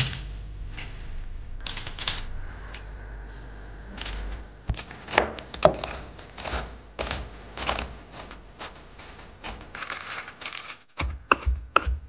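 A few light crisp rattles as thin crackers are lifted in a wicker basket. Then, from about five seconds in, a cleaver chopping walnuts and then peanuts on a wooden cutting board: irregular sharp knocks of the blade through the nuts into the board, coming faster near the end.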